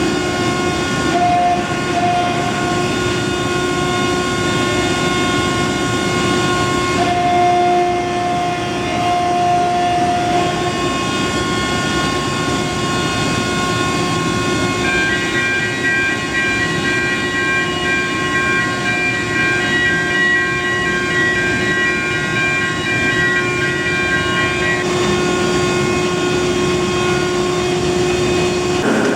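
Loud, steady industrial machinery noise from the melting plant, with several sustained tones that drop out and come back every few seconds.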